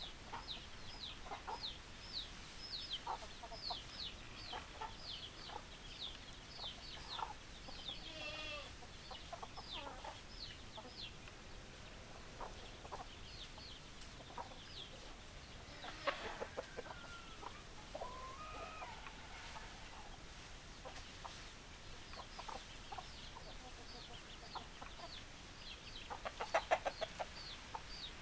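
Chickens: hens clucking under a steady run of short, high, falling chirps, with a longer drawn-out call about two-thirds of the way through and a loud squawk near the end.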